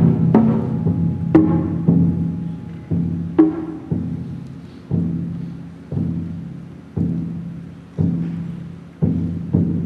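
Large gongs struck with mallets in a slow, even beat of about one stroke a second, with a few quicker double strokes in the first seconds. Each stroke rings on under the next.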